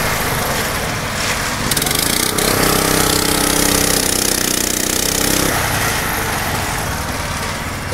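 Small engine of a motor-driven winch hoist (malacate) running loud and steady under load as it hauls a box of concrete up a ladder track. A steady hum rises out of the noise for a few seconds in the middle.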